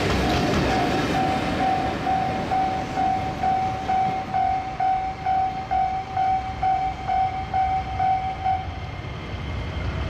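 Japanese level-crossing alarm ringing about twice a second over the rumble of a passing freight train. The alarm stops near the end, once the train has cleared the crossing.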